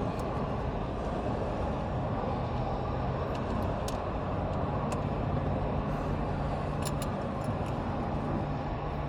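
A truck engine running steadily, with a low hum that grows stronger about halfway through. A few faint clicks are heard.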